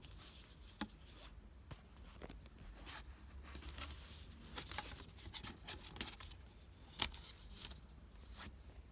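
A CD and its packaging being handled: light clicks, scrapes and rustles, with a sharp click about seven seconds in.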